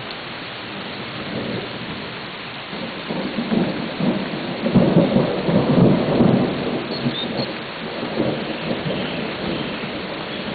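Steady rain falling during a thunderstorm, with a roll of thunder that builds about three seconds in, is loudest near the middle and rumbles away over the next few seconds.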